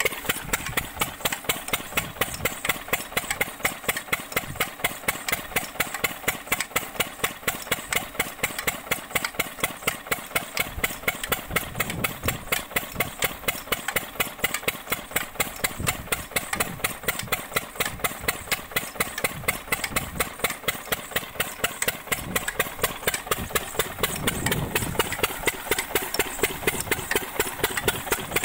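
Single-cylinder stationary diesel engine running steadily, belt-driving an irrigation water pump, with a regular beat of about five firings a second. Water gushing from the pump's outlet pipe adds a steady splashing underneath.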